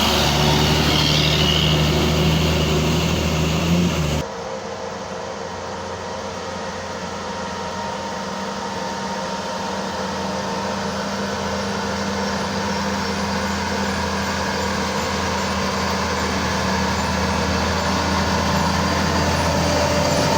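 Tour bus diesel engine pulling hard up a steep climb with a loud, steady, low note that cuts off abruptly about four seconds in. Another engine then takes over, quieter at first and growing gradually louder as it approaches.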